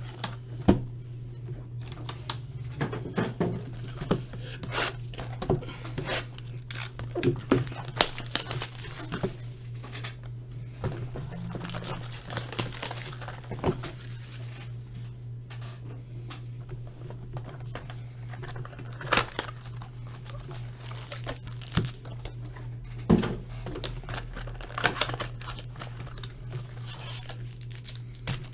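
Cellophane wrap being torn and crinkled off trading-card hobby boxes, with cardboard box flaps opened and foil card packs handled: irregular crackles, rustles and sharp taps. A steady low hum runs underneath.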